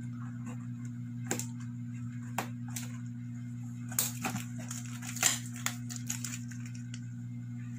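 Gift wrapping being cut with scissors and pulled off a cardboard box: scattered snips, crinkles and knocks, the loudest about four and five seconds in, over a steady low hum.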